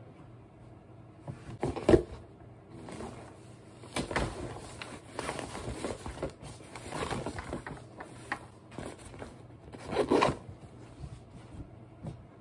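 A backpack being handled: a sharp thump about two seconds in, then rustling and the zipper being pulled, with another loud burst of rustling near the end.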